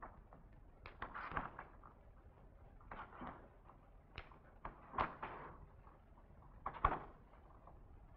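Slow bare footsteps on a stage floor, about one every two seconds. Each is a light slap followed by a short brushing sound, over a faint steady hiss.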